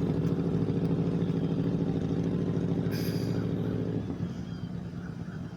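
An engine running steadily with a low drone, which drops away about four seconds in, leaving a quieter rumble. A brief hiss comes near three seconds in.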